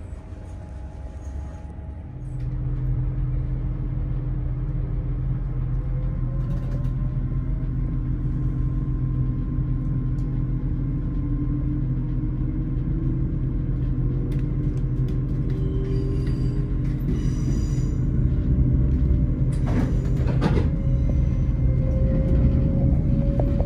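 GWR Hitachi Intercity Express Train heard from inside the carriage as it pulls away and accelerates. A steady low hum starts about two seconds in, a faint whine rises slowly in pitch as the train gathers speed, and a few sharp clicks come near the end.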